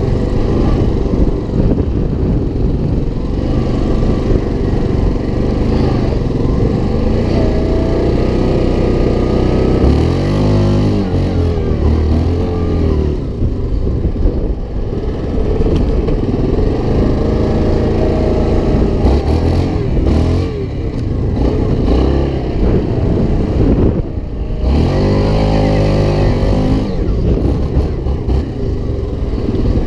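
Off-road vehicle engines running continuously, with an engine climbing and falling in pitch as it revs or passes about ten seconds in and again near the end.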